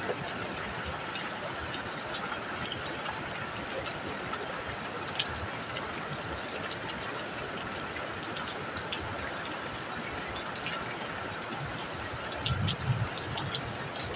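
Steady rain falling on a metal roof, a continuous hiss with scattered sharp drop ticks. A brief low rumble comes near the end.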